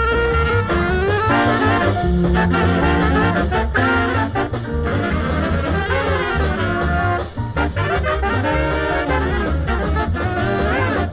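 Big band playing up-tempo swing: saxophone and brass section lines over a steady bass and drum pulse.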